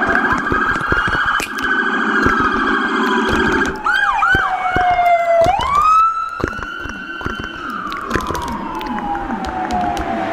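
Several police sirens wailing at once, their pitches gliding slowly up and down and overlapping, with many sharp clicks throughout.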